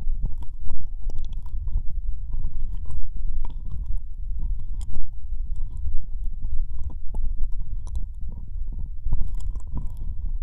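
Close-up wet mouth sounds of ear-licking into a binaural microphone: irregular licks, smacks and slurping clicks over a steady low rumble.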